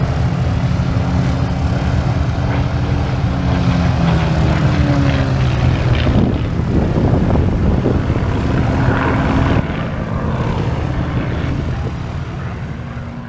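Harvard trainers' nine-cylinder radial piston engines running as they warm up, a steady propeller drone whose tone slides lower about four to five seconds in. The sound drops about ten seconds in and fades near the end.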